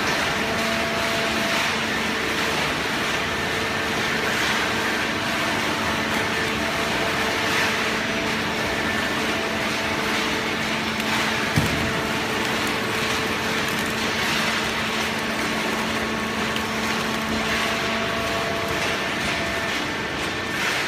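Hydraulic system of a cardboard baling press running: a steady machine noise with a constant whine, and a single sharp knock near the middle.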